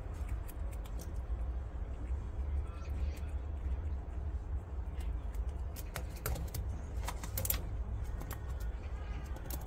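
Scattered small sharp clicks and crunches from pet prairie dogs close to the microphone, clustering about six seconds in and again near the end, over a steady low rumble.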